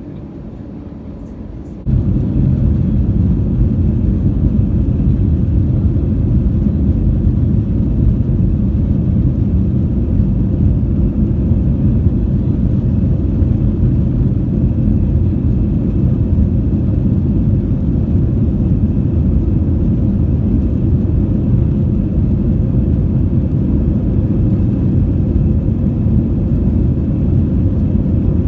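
Airbus A321 airliner heard from inside the cabin, with a loud steady roar of engines and rumble, as on the takeoff roll and climb. It starts abruptly about two seconds in and then holds steady.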